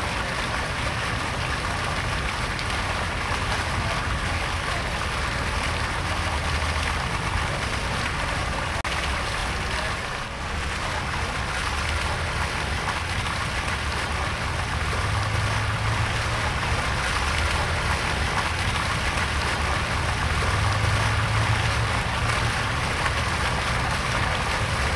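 Floating pool fountains spraying, with water falling back onto the pool surface in a steady, rain-like splashing hiss and a low hum underneath. The sound dips briefly about ten seconds in.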